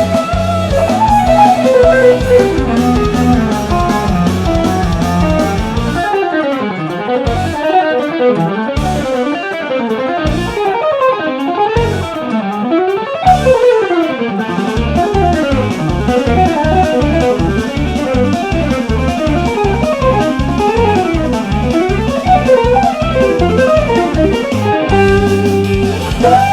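Electric guitar, a G&L-based custom, playing a melodic instrumental line over a steady low rhythmic backing. The low backing drops out about six seconds in and comes back around fifteen seconds.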